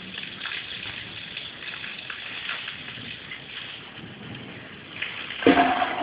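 Water drops dripping on leaves: an even hiss scattered with small ticks. Near the end a louder sound with a steady hum starts suddenly.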